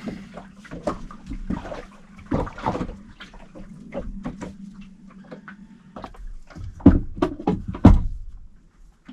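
A run of knocks and clattering, with three louder knocks near the end, over a steady low hum.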